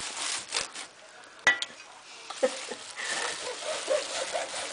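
A hand hacksaw cuts through a hard plastic clothing security tag held in a vise, in repeated back-and-forth rasping strokes. The strokes pause briefly, with one sharp click about a second and a half in, and then resume.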